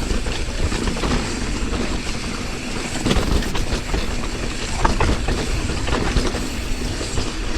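Mountain bike riding down a rough, rocky dirt trail: tyres rumbling over dirt and rock and the bike rattling, with many small clicks and knocks. Wind buffets the microphone throughout.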